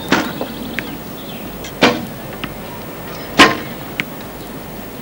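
Three sharp snaps of recurve bows loosing arrows on an archery range, about a second and a half apart, with fainter clicks in between.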